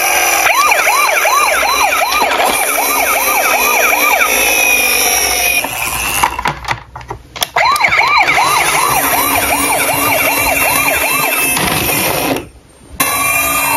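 Toy ambulance's electronic siren sounding a fast yelp, about three rising whoops a second. It breaks off briefly about six seconds in, starts again, and cuts out shortly before a slower wail begins at the very end.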